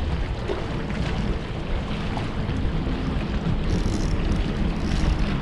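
Steady wind buffeting the microphone over water slapping and lapping against the boat.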